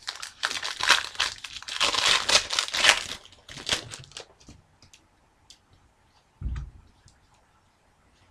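Foil wrapper of a Panini Certified hockey card pack being torn open and crinkled by hand for about four seconds, then a few faint ticks and one soft thump.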